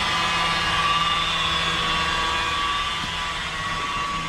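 Handheld power tool's motor running steadily with a whine, as used for color-sanding and buffing fresh urethane paint on a car body.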